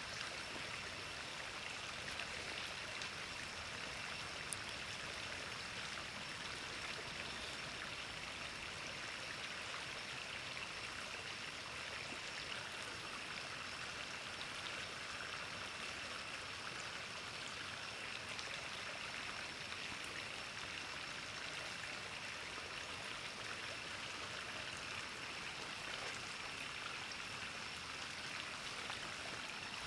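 Shallow river flowing steadily over stones, an even rushing wash of water, with a thin, steady high-pitched whine running over it.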